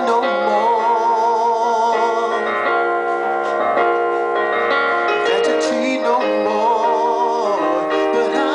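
A man singing a slow song live over chords on an electronic keyboard's piano sound, holding a long wavering note early on and again near the end.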